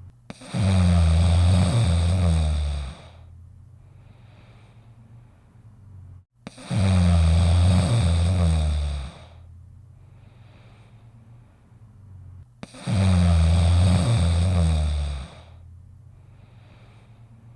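St. Bernard dog snoring in its sleep: three loud, low snores about six seconds apart, each lasting about two and a half seconds, with faint breaths between them.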